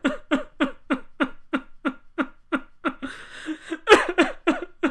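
A person sobbing hard: quick, catching cries about three a second, broken about three seconds in by a longer ragged breath before the sobbing resumes.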